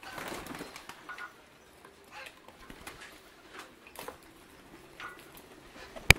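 Pigeons fluttering and cooing, with scattered taps on the tiled floor. One sharp click near the end is the loudest sound.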